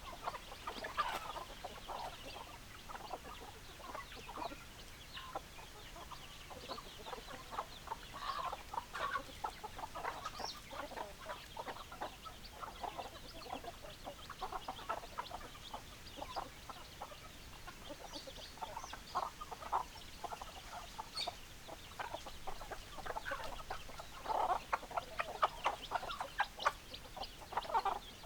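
A flock of hens clucking, with many short calls overlapping continuously and growing busier near the end.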